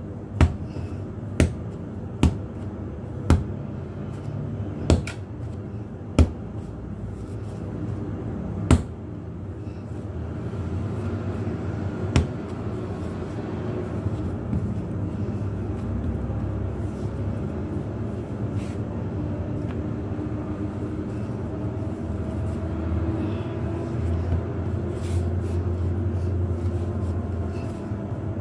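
A ball of yeast dough slammed down onto a floured counter again and again, about eight sharp thuds in the first twelve seconds, then hand kneading with a steady low hum underneath that grows louder in the second half.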